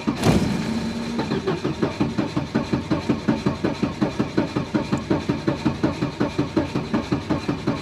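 Starter motor cranking a 1990 Volvo 740's 2.3 litre four-cylinder petrol engine over and over with a fast, even beat of compression strokes. The engine does not fire because its fuel injectors are disconnected. The cranking is strong and steady, the engine's low compression making it easy to turn.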